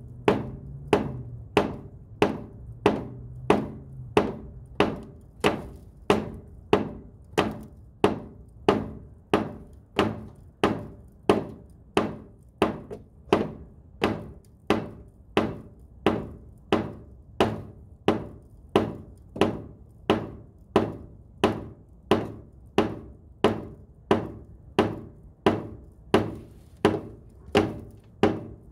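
Heavy rubber mallet pounding the end of a black ABS sewer pipe to drive it inside an old collapsing Orangeburg pipe: a steady run of dull thuds, about one and a half a second. The pipe is sliding in easily.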